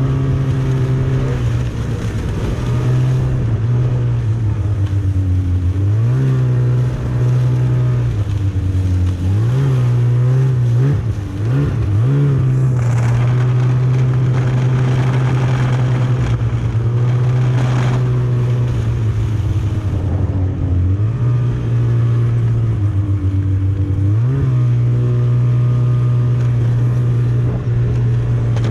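Snowmobile engine running under way. Its pitch drops and climbs back several times as the throttle is eased off and opened again.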